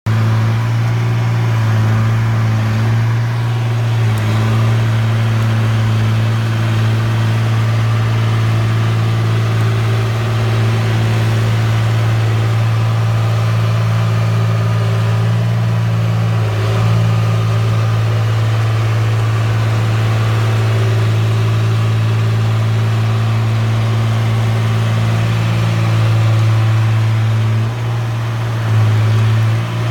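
Caterpillar D3C bulldozer's diesel engine idling steadily, its note dipping briefly near the end.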